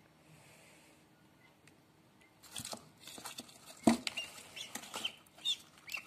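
A newly hatched duckling, wet and half still in its eggshell, flailing on cardboard. After a quiet start come scuffing and rustling, a sharp thump about four seconds in, and several short high peeps over the last two seconds.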